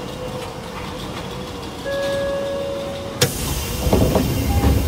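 Station stop inside an Osaka Metro 24 series subway car as the doors close: a steady electronic tone sounds for about a second, then a sudden loud hiss about three seconds in, followed by low thuds as the sliding doors shut.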